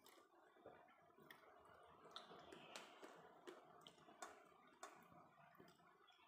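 Near silence with faint hand-eating sounds: a few soft, scattered clicks from chewing and from fingers working rice in a steel bowl.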